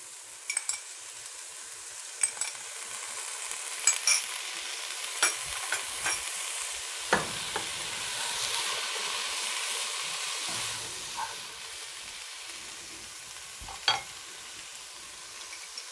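Chicken and vegetables sizzling in a hot pot as soy sauce is spooned in and stirred through with a spatula. There are sharp clicks of utensils on the pot, and the sizzle swells in the middle while it is being stirred.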